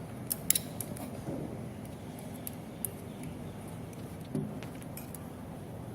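A few light clicks and taps from hands handling the metal parts of a cable cutting and stripping machine, a quick cluster about half a second in and scattered ticks later, over a steady low background hum.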